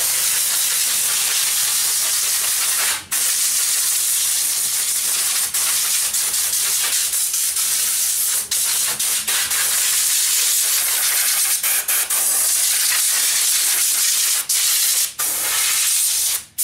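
Compressed air hissing steadily from an air duster gun on a compressor hose, blasting dust out of an open desktop computer case. The blast is cut off briefly about three seconds in, again near the end, and once more just before it ends, as the trigger is let go.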